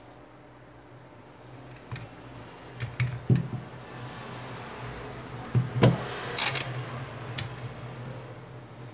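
Handling sounds of a Xiaomi Mi 8 smartphone being worked over a silicone repair mat: a few sharp clicks and knocks, the loudest about three and six seconds in, then a brief crackle of thin plastic film being peeled about six and a half seconds in.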